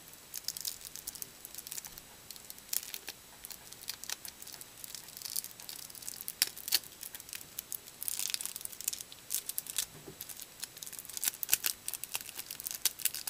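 Crinkling and tearing of the sealed plastic wrapper on a hanger box of baseball trading cards as it is worked open by hand, in irregular crackles with a denser rustle about eight seconds in; the wrapper is hard to open.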